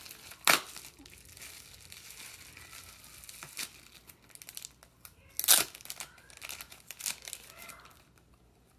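Plastic wrapping around a trading card crinkling and rustling as it is pulled open, with irregular clicks and two sharp snaps, about half a second in and at about five and a half seconds, the second the loudest.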